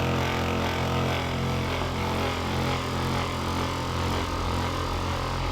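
Electric handheld massager running with a steady low hum.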